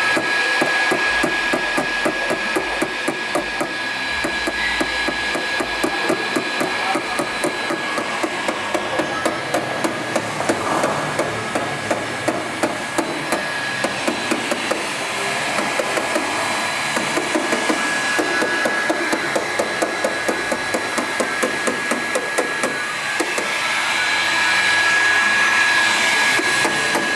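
A hammer striking quickly and repeatedly, several blows a second, working the car's fender so the newly fitted Toyo R888R semi-slick tyres stop rubbing on it.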